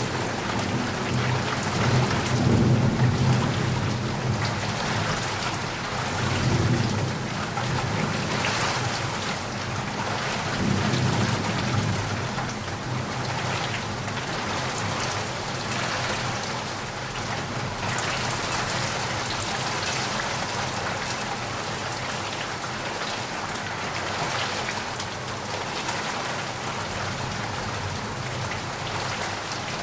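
Steady heavy rain falling, with a low rolling rumble of thunder through the first dozen seconds or so that fades away, leaving only the rain.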